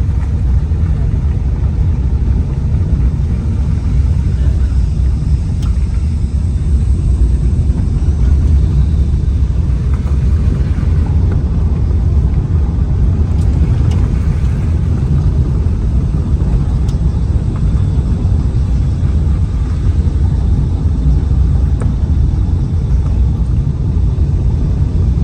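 Steady low rumble of a vehicle travelling along a rough road, engine and road noise running on without a break.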